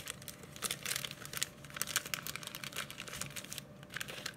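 Irregular crinkling and rustling of a cellophane packet and paper die-cut pieces being handled by hand, a quick run of small crackles and clicks.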